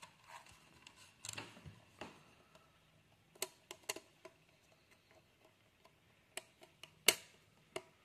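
Scattered small clicks and taps of plastic diorama pieces being handled and fitted together: track pieces pressed onto a plastic base panel, with the sharpest click about seven seconds in.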